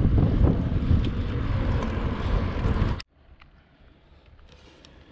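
Wind buffeting the microphone, a loud rumble that cuts off suddenly about three seconds in, leaving a quiet background with a few faint clicks.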